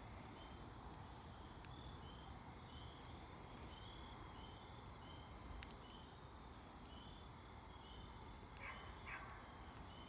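Campfire burning faintly, with a few sharp crackles and pops from the wood and a brief rustle near the end. A steady run of short high chirps, about two to three a second, goes on behind it.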